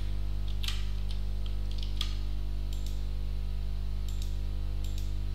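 Scattered computer keyboard keystrokes and mouse clicks over a steady low electrical hum.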